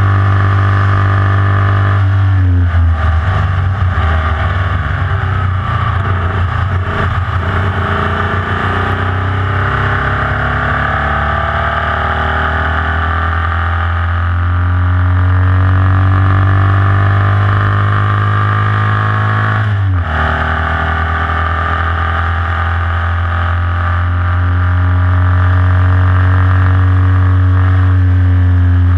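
Onboard sound of a Formula Vee's air-cooled Volkswagen flat-four running hard under load, its pitch climbing steadily. About two-thirds through it breaks off sharply and comes back lower, a gear change, then climbs again and eases off at the end.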